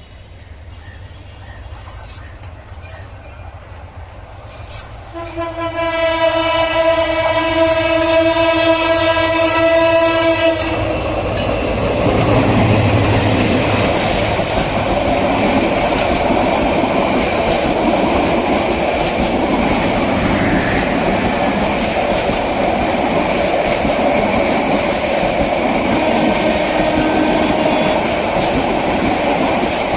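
Locomotive horn sounding one long steady blast of about five seconds, then a train passing close by with a loud, continuous rumble and clatter of wheels on rail.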